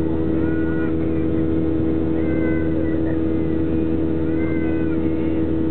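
Boeing 737-700's CFM56-7B jet engines running with a steady drone and a strong steady hum tone. Short, faint voices come and go over it.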